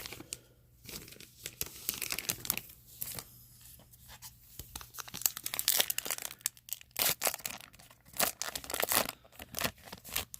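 Foil wrapper of a pack of baseball cards being torn open and crinkled by hand, in many short, sharp crackles.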